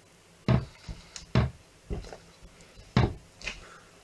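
Sharp wooden knocks as a soap log is handled on a wooden multi-bar wire soap cutter: four loud knocks, irregularly spaced, with lighter taps between.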